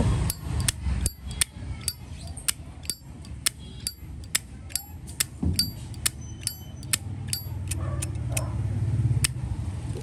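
Brass Zippo lighter lid being flicked open and snapped shut over and over: sharp metallic clicks about two to three a second, each with a brief high ring, over a low steady hum.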